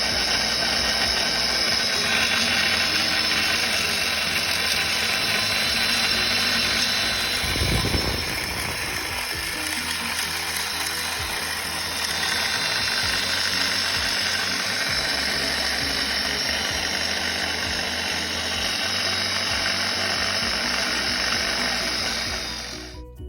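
Angle grinder grinding the steel of a sledgehammer head: a steady harsh hiss with a thin high whine. It eases off for a few seconds after about eight seconds, then picks up again and cuts off just before the end.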